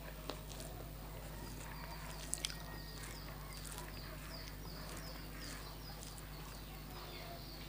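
A small bird chirping repeatedly in the background, short falling chirps about two a second from about three seconds in, over a steady low hum. Two sharp clicks a little after two seconds.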